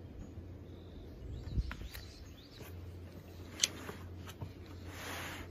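A few knocks and a sharp click, then a brief rustle of cardboard near the end as the flaps of a produce box are pulled open, over a steady low hum.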